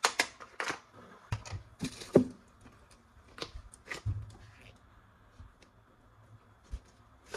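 Plastic toy gun parts being handled: irregular sharp clicks and short rustles, with a louder click near the end.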